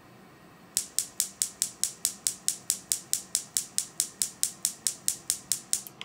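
Gas range's electric spark igniter clicking in a fast, even train of sharp snaps, about four to five a second, starting just under a second in and stopping just before the end.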